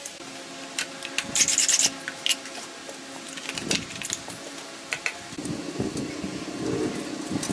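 Rubbing and scraping on a hard surface, with scattered light clicks and a brief rapid rattle about a second and a half in; the scraping grows denser in the second half.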